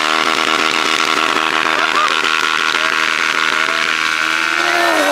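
Sport motorcycle engine held at high revs through a stationary burnout, the rear tyre spinning and smoking. The revs ease off and drop near the end.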